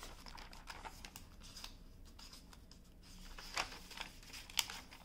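Soft paper handling: a lined guide sheet being slipped behind a notebook page, with light rustling and scattered small clicks, and a couple of sharper ticks in the second half.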